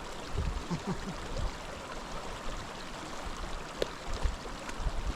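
Steady rush of flowing water from a mountain stream, with faint voices briefly in the first second or so and a couple of short taps later on.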